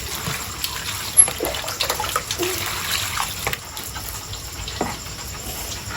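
Running water: a steady hiss with scattered small clicks and knocks.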